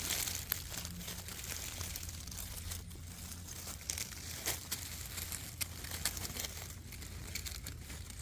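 Guinea pigs eating fresh grass: a steady run of crisp crunching and tearing as the blades are bitten off and chewed, over a low steady hum.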